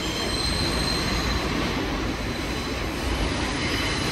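Bombardier R62A subway train running on the rails, a steady rumble with a faint high wheel squeal, brightest in the first second or so.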